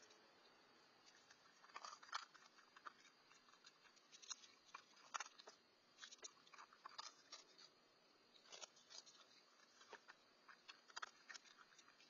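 Raccoon eating turtle food from a dish: faint, irregular crunches and clicks in quick clusters as it chews.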